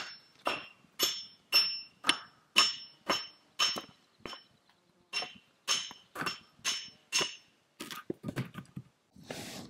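Repeated hammer-like strikes on metal, about two a second, each leaving a short ringing tone. They break off briefly about four and a half seconds in, then resume, and end in a few softer knocks.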